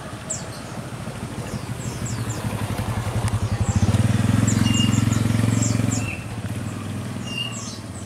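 A passing motor vehicle's engine grows louder from about a second in, is loudest from about four to six seconds, then drops away. Short high bird chirps repeat throughout.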